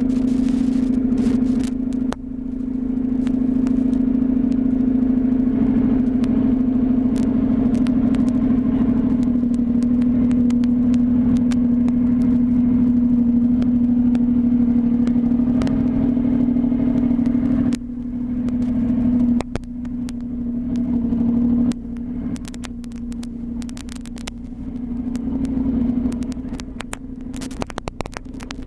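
Motorcycle engine running at a steady cruise while riding, one even note. It drops off briefly about two seconds in, then twice more in the last third, where it runs less evenly.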